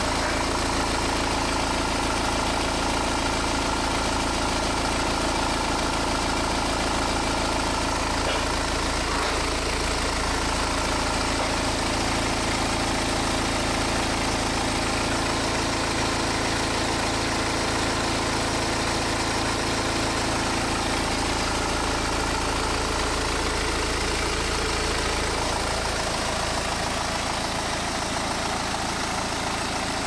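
BMW N47 four-cylinder diesel engine idling steadily, with its clutch newly replaced to cure a shaking vibration at tick-over.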